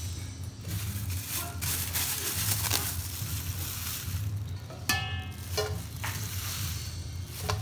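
Plastic-gloved hands rustling as they scoop chopped grilled beef off a wooden cutting board into a stainless steel bowl, over a low rumble. About five seconds in there is a sharp knock, and the steel bowl rings briefly.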